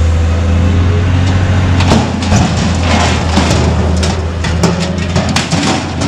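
Scrap-yard crane's engine running with a steady low drone while its lifting magnet pulls scrap metal out of a pickup bed: from about two seconds in, repeated irregular metal clanks and scrapes as the pieces shift and strike each other.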